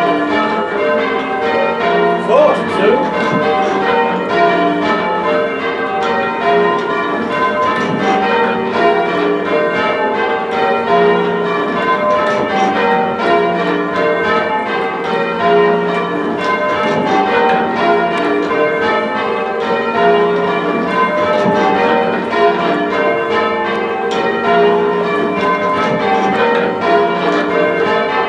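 A ring of six heavy church bells rung full circle in change ringing, the strokes following one another without a break in a steady overlapping peal.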